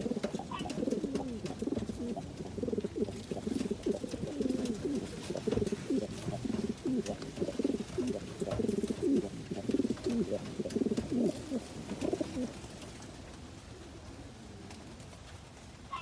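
Lahore pigeon cock cooing over and over in a courtship display to a hen. The cooing stops about three-quarters of the way through.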